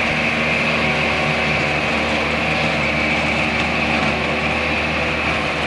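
Self-propelled swather running steadily while cutting heavy beardless wheat: a constant engine hum with a steady high-pitched whine over it.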